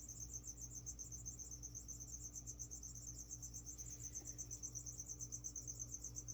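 A cricket chirping: a steady high trill pulsing about seven times a second, over a steady low hum.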